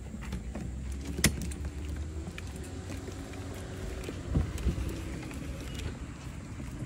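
Folding utility wagon rolling over asphalt, its wheels rumbling and its frame and plastic bin rattling, with a sharp knock about a second in and a couple of thumps around four seconds in.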